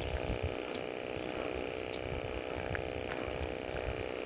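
Low-level open-air background noise: a faint steady hum over an irregular low rumble, with a few faint ticks.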